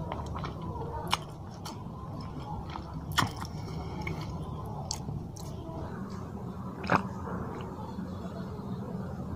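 Close-miked eating mouth sounds of a man chewing the last of a spicy fish curry and rice meal and licking his fingers. Several sharp, wet lip smacks stand out, the loudest at about 1, 3 and 7 seconds.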